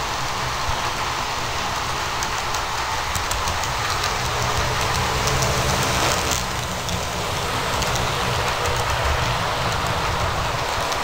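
HO scale model train running past on its track: a steady rumble with quick, light clicks of the wheels over the rail joints.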